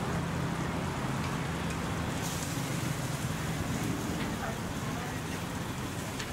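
Busy stall-kitchen ambience: a steady low hum under an even hiss, with a few light clicks of metal tongs and spatula and faint background voices.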